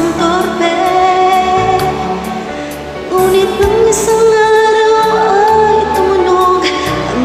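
A woman singing long, held lines into a microphone over a karaoke backing track with a steady beat.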